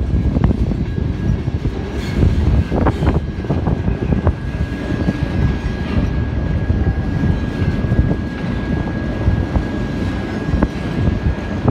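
Freight cars rolling past at track side: a heavy, steady rumble of wheels on rail with scattered clicks. A thin, steady high squeal starts about a second in and holds.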